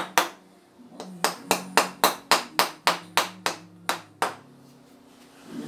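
A run of sharp knocks, about three to four a second with short pauses, over faint background music.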